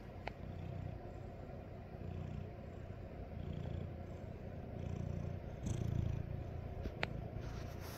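Domestic cat purring close up: a steady low rumble that swells and fades in slow waves, about every second and a half.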